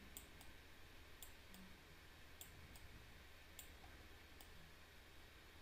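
A few faint, scattered clicks of a computer mouse, its buttons and scroll wheel, over near silence.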